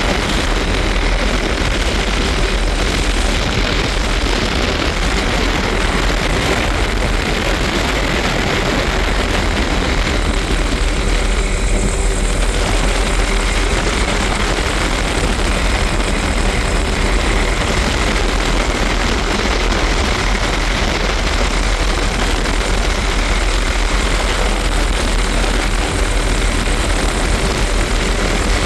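Tour helicopter in flight with its doors off: steady, loud rotor and engine noise mixed with wind rushing through the open cabin.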